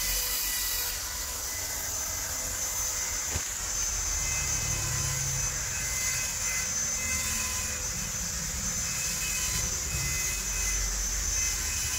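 Steady machinery noise: a continuous high hiss over a low rumble, with faint whining tones and a single small click about three seconds in.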